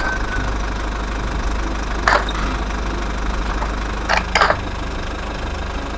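A steady low engine-like rumble, with a few short sharp clicks: one about two seconds in and two close together around four seconds in, as plastic wheels are pressed onto a toy box truck.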